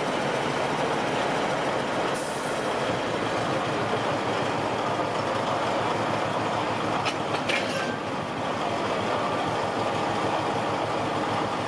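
Diesel-hydraulic locomotive engine running steadily close by. A few brief metallic clicks and a short squeak come about seven seconds in.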